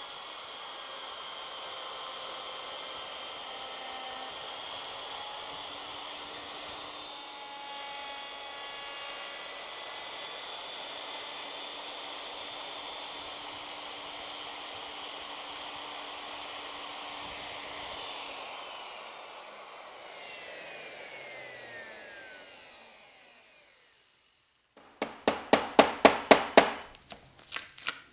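Router running with a two-flute straight cutter, cutting out a wooden moulding, then switched off and spinning down with a falling whine over several seconds. Near the end comes a short, loud burst of rapid pulses.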